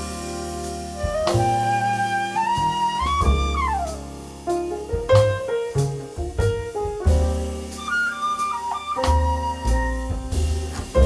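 Jazz band playing an instrumental passage: a flute plays a melody with sliding, bending notes over piano chords, bass and drums.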